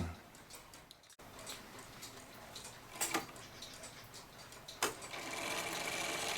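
1915 Seth Thomas Adamantine mantel clock ticking faintly, with two sharp clicks about three and five seconds in. From about five seconds a mechanical whirring builds as the strike train runs toward the half-hour gong strike.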